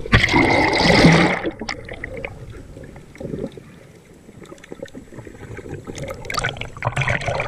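Sea water splashing around a handheld action camera as it plunges under the surface, then muffled underwater gurgling. More splashing about six seconds in as it breaks back through the surface.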